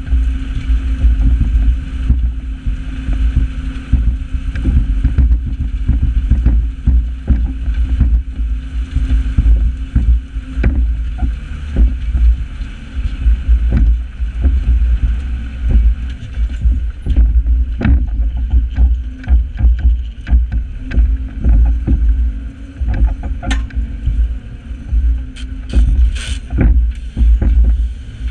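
New Holland 8160 tractor engine running steadily under load, pulling a Kverneland four-furrow reversible plough, with frequent knocks and rattles and a heavy, pulsing wind rumble on the microphone.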